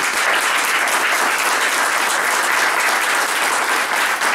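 Small audience applauding steadily, marking the end of a spoken reading.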